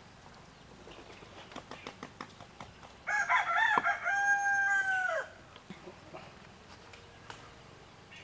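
A rooster crowing once, about three seconds in: a wavering start, then a long held note that drops off at the end. Before it, faint light clicks of a knife cutting through halwa on a glass plate.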